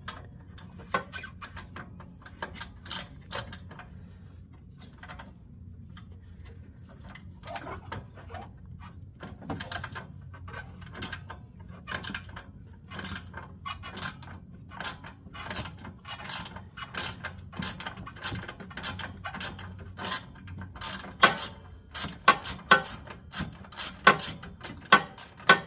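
A 1/4-inch hand ratchet clicking as small bolts are backed out of a snowblower's recoil starter housing: irregular runs of short clicks that grow louder and closer together in the last few seconds.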